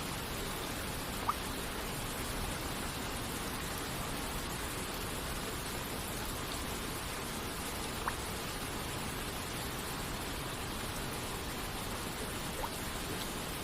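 Steady hiss of rain and falling water, with a few single water droplets plinking now and then, about three times.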